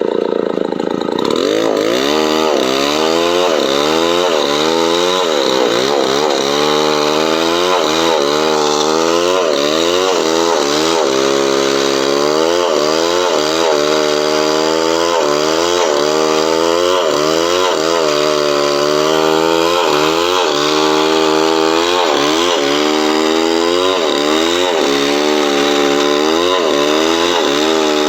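Chainsaw running under load, cutting coconut palm wood into boards. The engine pitch dips and recovers about once a second as the chain bites and frees, with a steadier stretch a little before the middle.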